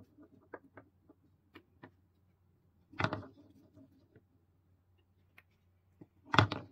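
Painted wooden balls tipped from wooden cups into a wooden bowl. One clatters in about three seconds in and another, louder, near the end. Each is followed by a brief rattle as it rolls and settles, with a few light wooden taps between.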